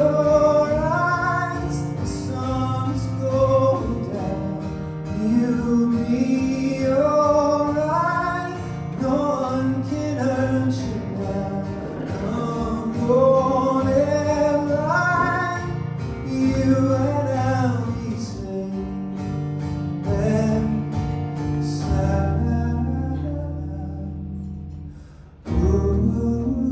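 A man singing a slow melody to his own strummed acoustic guitar. About twenty-two seconds in the sound thins to a fading low ring, and the guitar comes back in sharply near the end.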